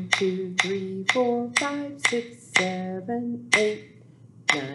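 Pair of rhythm sticks clicked together about twice a second in a steady count, with a woman's voice counting aloud on each click.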